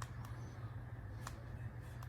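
A KINDLOV 19.7-inch flush-mount ceiling fan running: a steady low hum with a few faint ticks.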